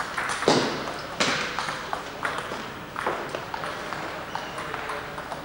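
Table tennis balls clicking off bats and tables: two sharp hits about half a second and a second in, then scattered lighter clicks, with short echoes off the hall.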